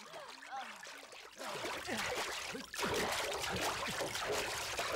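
River water splashing and churning heavily, struck by bodies and a pole on a bamboo raft. It starts about a second and a half in and grows louder a little later.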